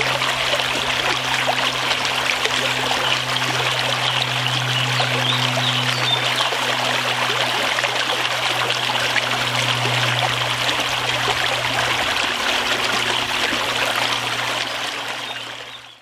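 Steady rushing of running water, like a flowing stream, over a low steady hum. It fades out in the last second.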